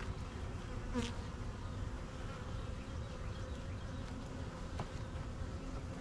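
Honeybees buzzing steadily as a mass over the open hive frames, with a single sharp knock about a second in.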